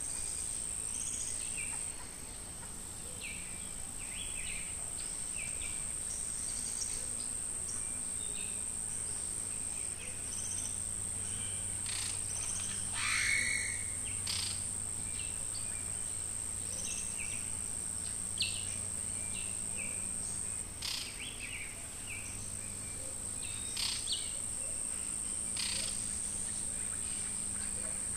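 Outdoor wildlife ambience: a steady high-pitched insect drone, like crickets, under scattered short bird chirps. About halfway, one louder call slides down in pitch, and a few brief clicks come later on.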